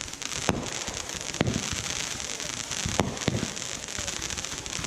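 Consumer fireworks going off: a continuous dense crackling, with about four sharp bangs spread through it.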